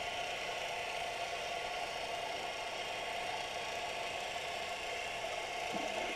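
Steady underwater hum and hiss picked up through a GoPro's waterproof housing, with a faint steady tone running through it.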